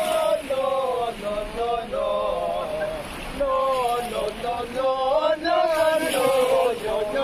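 Voices chanting in a sung melody with long held notes, continuing without pause.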